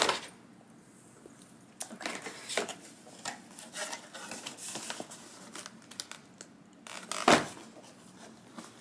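Cardboard camera box being opened and handled: card and paper rustling and scraping with small taps, then one sharp knock about seven seconds in.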